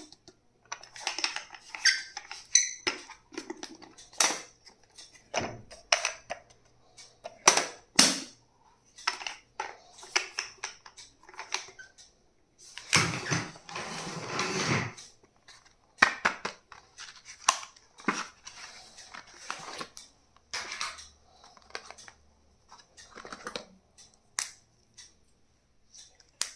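Small stationery items and their packaging being handled: irregular clicks and taps, with a couple of seconds of continuous rustling about halfway through.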